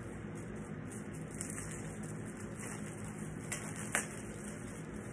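Poster wrapping being handled and pulled off, a soft crackling rustle with two sharp crackles about three and a half and four seconds in, over a steady low background hum.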